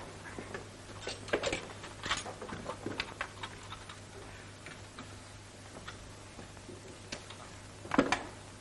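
Scattered soft clicks and knocks of people moving about and settling into chairs, over the steady low hum of an early sound-film track. There is a louder knock about eight seconds in.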